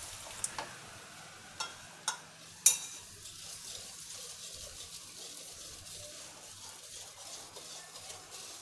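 Warm water poured onto grated jaggery in a ceramic bowl, with a few sharp clinks of metal against the bowl in the first three seconds, the loudest near three seconds in. Then a wire whisk stirs steadily, ticking lightly against the bowl as the jaggery dissolves.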